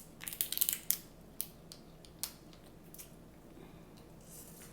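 Crab leg shells cracking and snapping as they are broken open by hand: a quick cluster of sharp crackles, then a few single snaps spaced about a second apart, and a brief hiss near the end.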